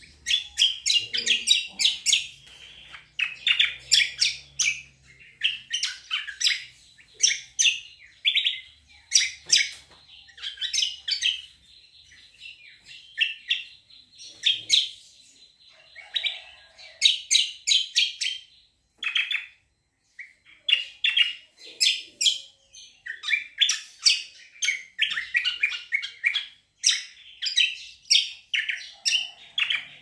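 Caged kecial songbird singing almost without a break in fast runs of high, sharp chirps, with only short pauses. It is in full, continuous song.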